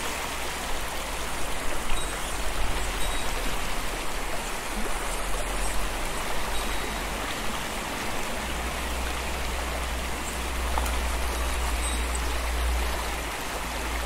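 Mountain stream water rushing steadily over rocks, with a low rumble underneath that grows stronger about halfway through.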